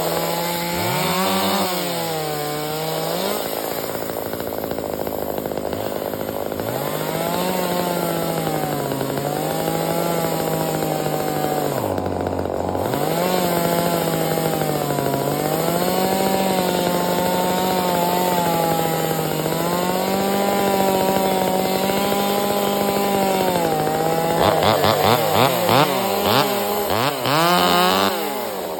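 Chainsaw engine running at high speed, its pitch sagging repeatedly and recovering, as under load while cutting wood. A run of quick throttle revs comes near the end.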